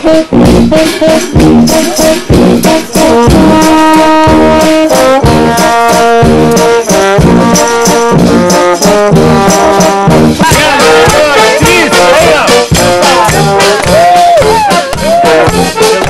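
Brass band music with a fast, steady drum beat. About ten seconds in, the melody turns wavering and ornamented.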